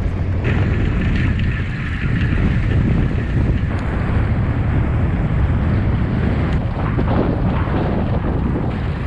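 Wind buffeting the microphone as a bicycle is ridden along the road: a steady, heavy low rumble.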